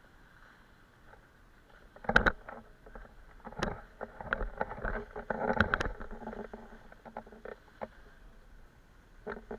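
Knocks and rubbing from an action camera on a hand-held selfie stick, picked up through the camera body while skiing, with scraping of skis on snow loudest in the middle. The sharpest knocks come about two seconds in and again near six seconds.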